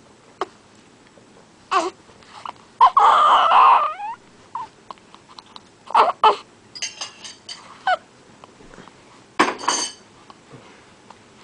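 Two-week-old newborn fussing: scattered short whimpers and grunts, with the longest and loudest cry about three seconds in and another short cry near the end.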